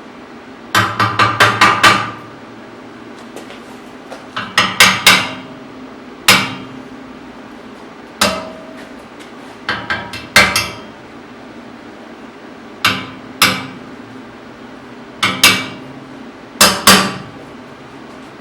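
Hammer striking steel, in about nine groups of quick blows with short gaps between them, each group ringing briefly. The loudest is the first group of about six fast strikes, roughly a second in.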